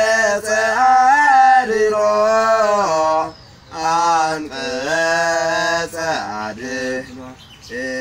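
A man's voice singing an unaccompanied chant-like melody, with long held and bending notes in phrases of a couple of seconds, broken by short pauses for breath.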